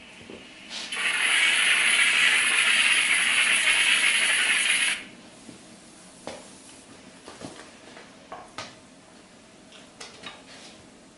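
Powder-coating spray gun blowing chrome powder with compressed air: a loud, steady hiss of about four seconds that cuts off sharply when the trigger is released. A few faint, light clicks follow.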